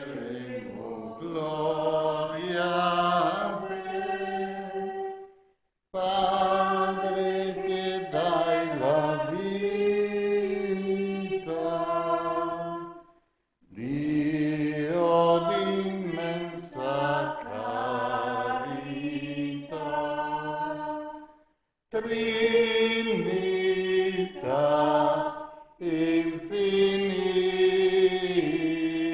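A small congregation singing a liturgical hymn together without accompaniment. It moves in long held phrases, each ending in a brief pause for breath, three times.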